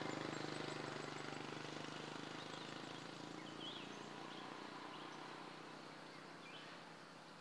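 A vehicle's engine hum fading steadily away, as if driving off into the distance. A few short bird chirps come in during the second half.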